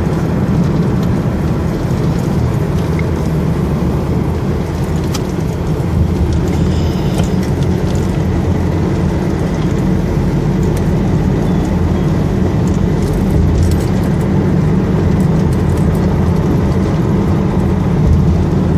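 A car cruising at speed on a smooth highway, heard from inside the car: a steady low rumble of road and engine noise.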